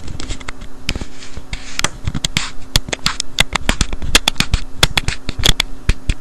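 Handling noise close to the microphone: a rapid, irregular run of clicks, taps and rustles from hands fiddling with the camera to get it to zoom, thickest in the second half, over a steady low mains hum.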